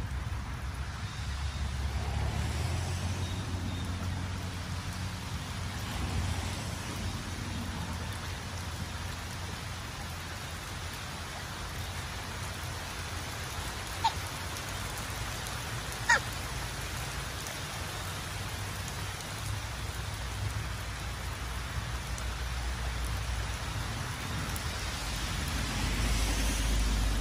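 Steady hiss of light rain with a low rumble underneath. Two short, sharp calls stand out about two seconds apart, midway through.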